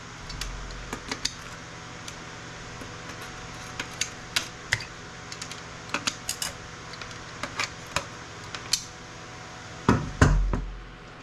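Scattered sharp clicks and metallic clinks of aluminum capacitors and other parts being worked off circuit boards by hand and dropped. A louder knock with a brief low rumble comes near the end.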